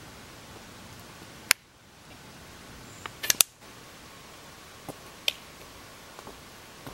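Sharp clicks of a plastic water bottle being handled: one about one and a half seconds in and a quick cluster of three about three seconds in, then a few fainter clicks, over a faint steady background hiss.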